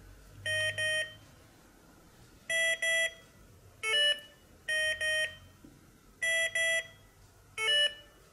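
Morserino-32 Morse trainer's speaker beeping the letter M, two dashes, over and over as it is played and then echoed back on the paddle. Every second pair of dashes is followed by a short beep of another pitch as the echo is accepted.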